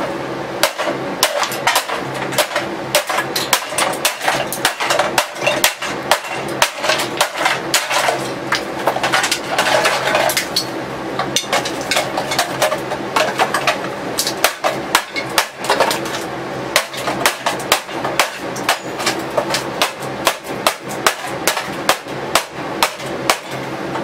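Claw hammer repeatedly striking the plastic housing of a kitchen mixer, sharp blows about two to three a second with a short lull about halfway. The tough plastic housing holds up against the blows without breaking.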